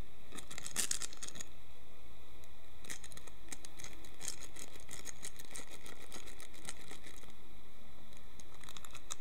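Light crinkling and scratching rustles in scattered clusters, from movement against the material of a fabric cat tunnel.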